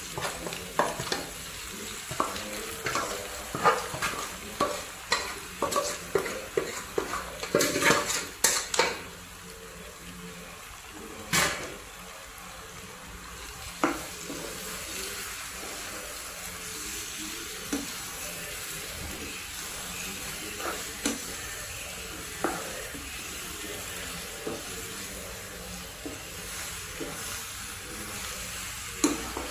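Wooden spatula knocking and scraping against a metal bowl and pot as fish pieces are scraped in and stirred, a quick run of clacks for the first nine seconds, then only occasional knocks. Under it a steady sizzle of the fish and onions frying in the pot.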